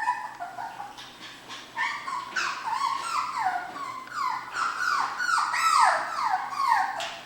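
Goldendoodle puppies crying in a string of short, high-pitched cries that each fall in pitch, coming faster and louder from about two seconds in, some overlapping.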